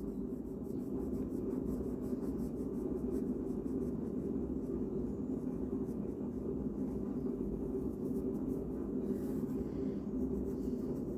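Pencil drawing lines on a large sheet of paper, scratching and rubbing as it traces a curve, over a steady low room hum.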